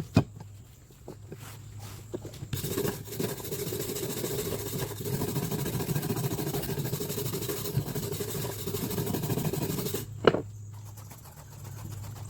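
Wire brush scrubbing a large, vinegar-soaked cast-iron pipe wrench in steady back-and-forth strokes that stop about ten seconds in, followed by a single sharp knock.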